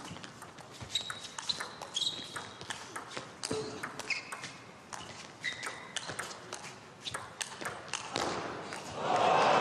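Table tennis rally: the ball clicking sharply off the rackets and table in quick alternation, with short squeaks of shoes on the court floor. Near the end a crowd breaks into loud cheering and applause as the point ends.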